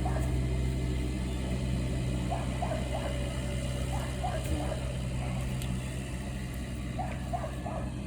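An engine idling steadily, with short repeated squeaks over it.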